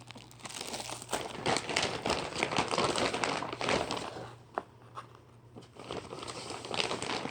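Firework packaging being handled, crinkling and rustling in irregular bursts, with one sharp click about four and a half seconds in.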